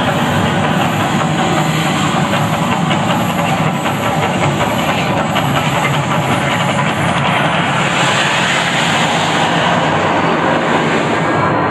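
The Mirage volcano erupting: a loud, steady rushing roar with no clear pitch or rhythm.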